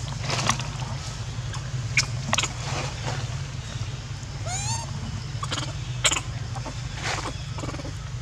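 Outdoor ambience: a steady low hum under several sharp clicks and cracks, with one short, rising squeaky call about four and a half seconds in.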